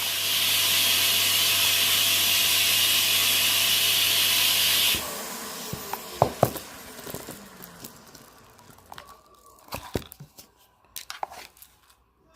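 A steady hiss with a low hum, like a small blower or spray, cuts off suddenly about five seconds in. Scattered crackles and crunches follow, growing sparser and quieter.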